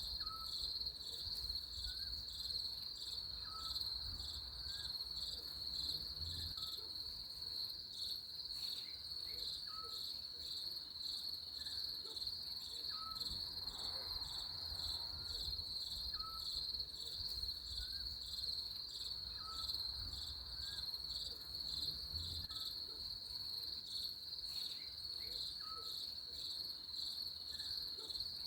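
Steady chorus of insects, a continuous high trill that pulses evenly. Short faint chirps repeat about once a second lower down.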